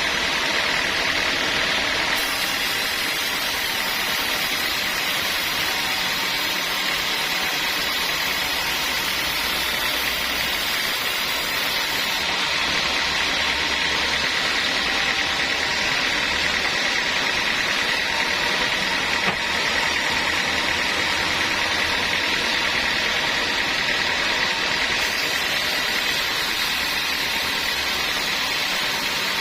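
Sawmill saw running steadily while cutting through a large log, a continuous loud whirring noise with a high steady whine.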